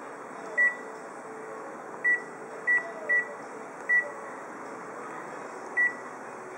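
Photocopier touchscreen beeping at each button press: six short, identical high beeps at uneven intervals over a steady hum.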